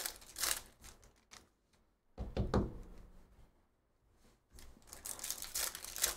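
A trading-card pack wrapper being torn and crinkled open and cards being handled, in short crackling bursts near the start and again over the last second and a half, with a single dull thump about two seconds in.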